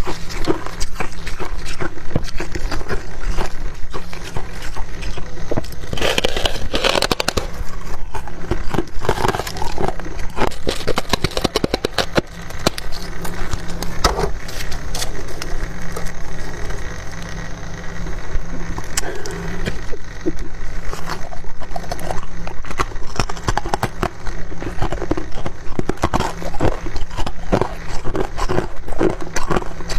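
Close-miked crunching and chewing of refrozen freezer frost: dense, irregular crackles and crunches with no pause.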